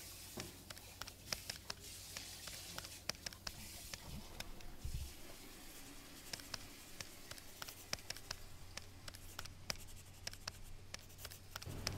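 Faint scratching with scattered light clicks and taps of hands at work, over a low steady hum.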